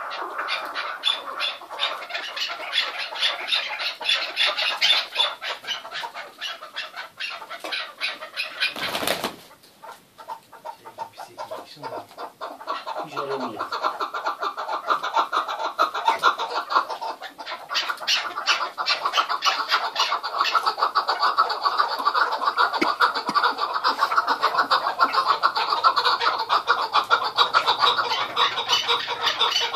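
Chukar partridges calling in a fast, unbroken run of clucking chuk notes, many to the second. A single sharp knock comes about nine seconds in; the calling drops off for a few seconds after it, then builds back up to full strength.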